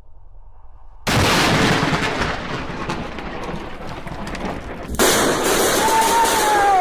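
Close lightning strike on a tree: a sudden loud thunder crack about a second in that rolls on, then a second loud crash about four seconds later. A man's shout begins near the end.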